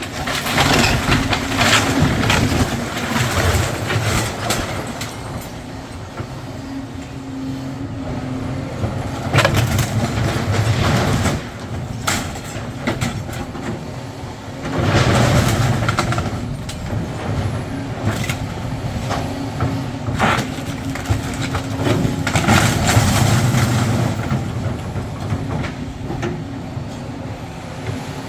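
Demolition excavator's engine running steadily under load while it tears into a building, with repeated crashes and clatter of concrete, brick and metal debris breaking and falling.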